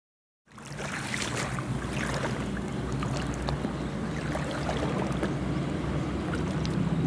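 Outdoor shoreline ambience at low tide: steady wind on the microphone and moving water, with faint scattered splashes. It starts after about half a second of silence.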